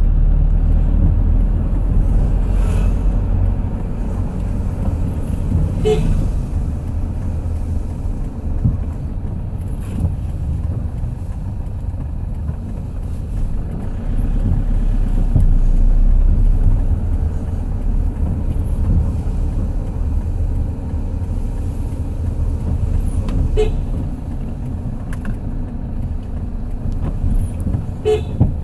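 Steady low rumble of a road vehicle in motion, broken by a few short, sharp higher sounds.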